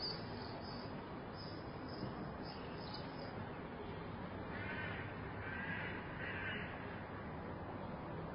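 Quiet city room tone through an open balcony: a steady hush of distant background noise, with small birds chirping faintly in the first few seconds. About five seconds in, a bird caws three times.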